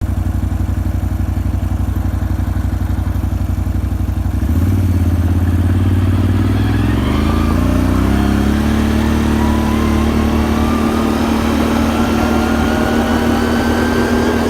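Can-Am Renegade 570 ATV's V-twin engine running, then pulling away under throttle about four seconds in. From about seven seconds a thin whine rises steadily in pitch as speed builds over the engine drone: the whine the owner hears at normal riding speeds under steady throttle, its cause unknown to him.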